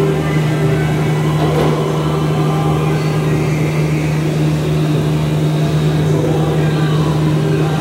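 A steady, loud low machine hum with a strong drone and evenly spaced overtones, unchanging throughout.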